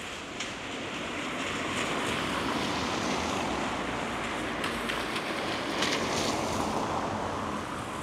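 A vehicle passing on the street: tyre and road noise swells about a second in, holds for several seconds, and fades near the end.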